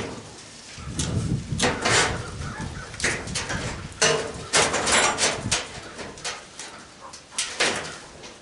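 Sheet metal and stove parts clanking and scraping in irregular bursts, with sharp knocks, as a gas cook stove is pulled apart by hand.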